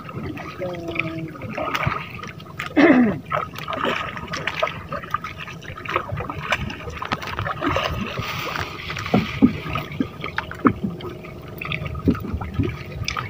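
Water gurgling and splashing around a small boat, with irregular small knocks and drips.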